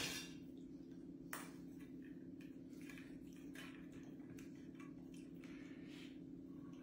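Faint, scattered clicks of metal kitchen tongs and a ladle touching each other and an aluminium pan as pasta is twirled into a nest, over a steady low hum.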